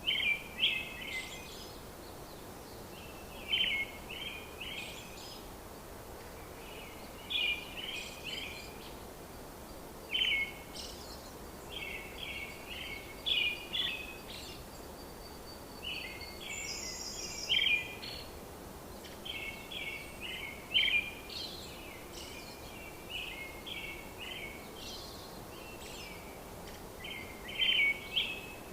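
Small birds chirping in short clusters of quick notes every few seconds, over a steady background hiss.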